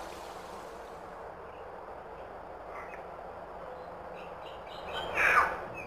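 Steady outdoor hiss, with a bird giving one loud falling call about five seconds in and a faint short note near the middle.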